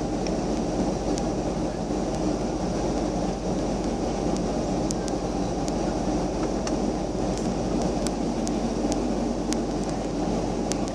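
Steady roar of an airliner's jet engines and rushing air, heard from inside the passenger cabin in cruise flight.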